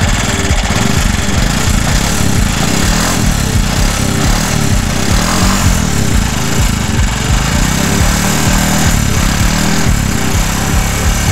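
Bajaj three-wheeler's single-cylinder four-stroke engine running steadily with its freshly replaced cylinder bore, heard at the tailpipe as a rapid, even beat of exhaust pulses.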